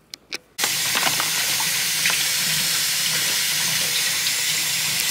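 Granola poured into a bowl of yogurt: a steady, dry rushing rattle that starts suddenly about half a second in, after a few faint clicks.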